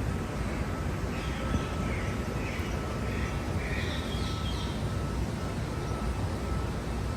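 A bird giving a run of about six short, harsh calls, over a steady low rumble.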